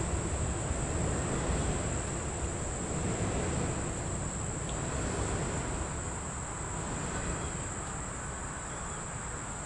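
Steady high-pitched insect chorus droning without a break, over a steady low background rumble.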